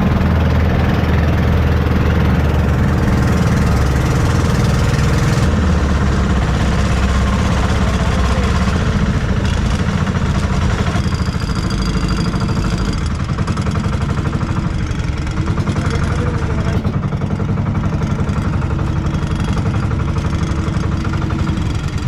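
Boat engine running steadily as the boat travels, a little quieter in the second half.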